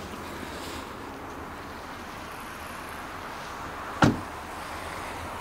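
The driver's door of a 2013 Volkswagen Golf shut by hand: one solid thud about four seconds in, over a steady low background hum.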